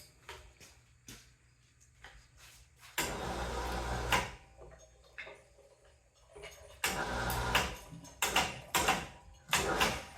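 Heavy metal pump units being shifted and handled: a few light knocks, then a second of loud scraping, then a run of loud scraping and clunking in the last few seconds.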